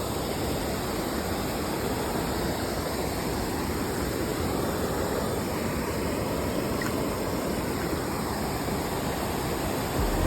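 Steady rush of creek water flowing.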